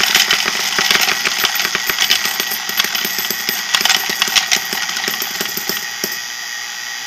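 Electric coin hopper running on mains power and ejecting coins one after another, with a steady motor whir under rapid clicking and clinking as coins shoot out and land on the pile. Near the end the clicking thins out and the motor keeps running steadily.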